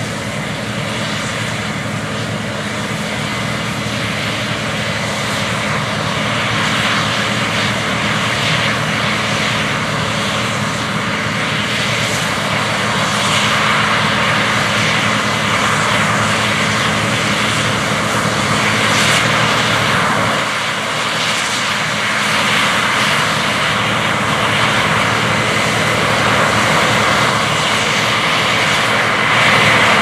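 Case IH Axial-Flow combine harvester and the tractor beside it running steadily as the combine cuts wheat and augers grain into the grain cart on the go. A steady engine hum sits under a broad rushing noise, growing gradually louder as the machines come closer.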